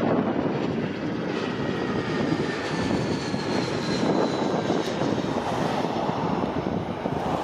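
Airbus A320 jet airliner on final approach with landing gear down, its engines making a steady rumble. A faint whine sits over the rumble and falls slightly in pitch about halfway through as the plane passes.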